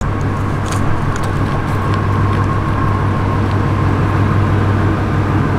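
Ford Mustang's engine running steadily, a constant low hum with no revving.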